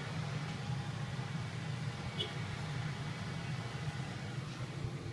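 Steady low hum and hiss of household background noise, with one light click about two seconds in.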